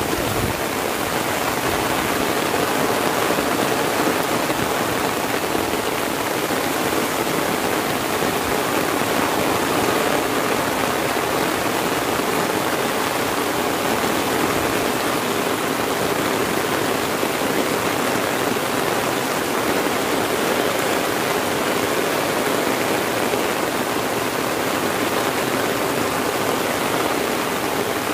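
Heavy rain falling steadily, heard from under an umbrella: a dense, even hiss of drops on the umbrella and the surrounding leaves and grass.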